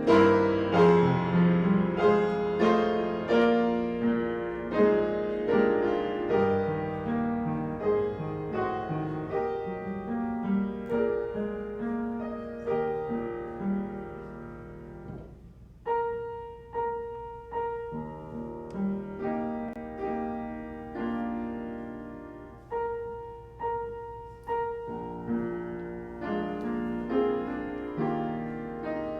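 Solo piano playing a slow, quiet piece. Its chords thin to sparse single notes about halfway through, then fill out again near the end.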